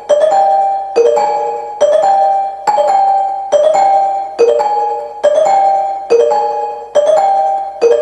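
Music: a chiming, mallet-like keyboard riff, a two-note figure repeating a little more than once a second, with no drums or bass.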